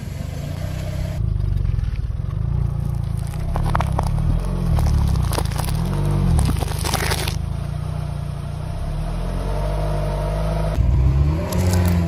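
Car tyre crushing small objects (water balloons, a heap of candy-coated chocolates, candy bottles), played backwards: cracking and crunching over the car's low rumble. The clips cut abruptly about a second in, near seven seconds and near eleven seconds.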